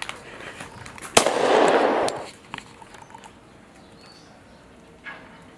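A sudden sharp bang about a second in, followed by about a second of loud rushing noise that dies away, then a few faint clicks.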